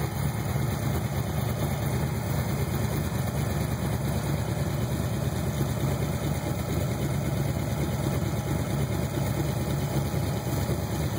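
383 cubic-inch V8 crate engine with a four-barrel carburettor idling steadily on a run stand at about 1,000 rpm.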